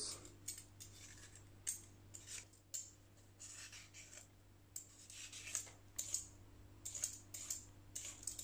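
Vegetable peeler blade scraping the skin off a raw sweet potato in a quick series of short strokes, faint and irregular.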